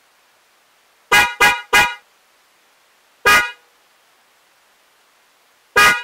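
DENSO J-Horn Hyper spiral car horn sounding in short toots: three quick toots about a second in, another a little over three seconds in, and one more near the end.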